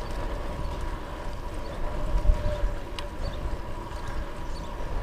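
Riding noise from a road bike in motion: wind buffeting the camera microphone and tyres rolling on asphalt, with a faint steady whine and a single click about three seconds in.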